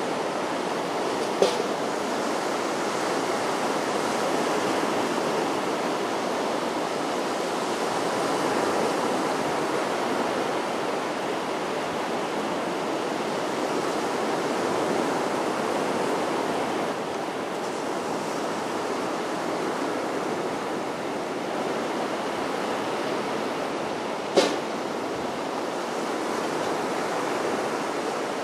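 Sea surf washing steadily on a sandy beach, a continuous rushing that swells and eases slowly. Two brief sharp clicks cut through it, one about a second in and one late on.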